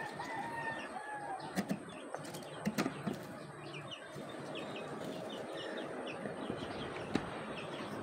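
Birds chirping in short repeated notes, with a long falling call near the start. A few sharp clicks and knocks sound about a second and a half to three seconds in and once near the end, as hands work a wooden nest box and its metal turn-button latch.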